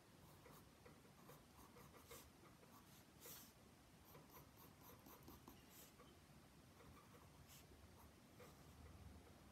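Faint scratching of a pencil on toned sketchbook paper, in short quick strokes, a little louder about two and three seconds in.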